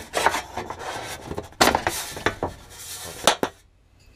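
Screwdriver scraping and prying at the plastic diaphragm cap of a VW-Audi 2.0L FSI PCV valve to pop it off: irregular scraping with several sharp clicks, the loudest about three seconds in.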